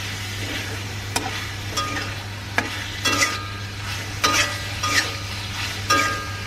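Metal spatula scraping and turning chicken pieces in an aluminium wok, about seven strokes at an uneven pace, some leaving a short metallic ring, over a faint sizzle of frying.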